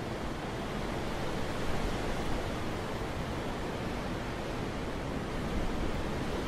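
Wind blowing steadily, an even rushing noise without gusts or breaks.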